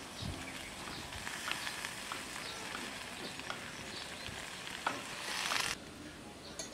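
Mixed vegetables sizzling in hot ghee in a kadai as handfuls of spinach and radish greens are dropped in, with light clicks and rustles. The sizzle swells briefly, then cuts off abruptly about five and a half seconds in, leaving quiet outdoor ambience.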